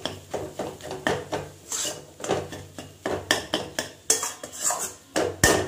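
Flat steel spatula scraping and stirring in a steel kadai, in repeated strokes about two a second, as dry mashed boiled potato and prawn masala are sautéed together.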